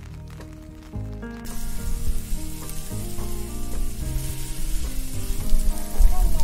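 Chopped onions sizzling as they fry in a pan and are stirred with a spatula. The sizzle starts suddenly about a second and a half in, over background music.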